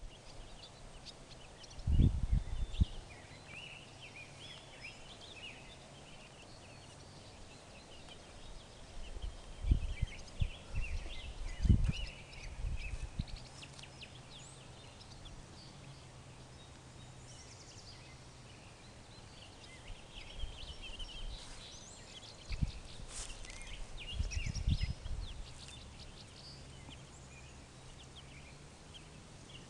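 Baby chicks peeping: many short, high cheeps scattered throughout. Dull low thumps come through a few times, about two seconds in, around ten and twelve seconds, and again near twenty-three to twenty-five seconds.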